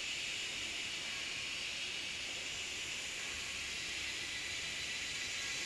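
Steady high-pitched hiss with no distinct calls or knocks.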